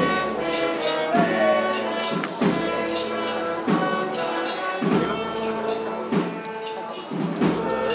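Band music: a slow Holy Week processional march, with held notes over a steady beat a little over once a second.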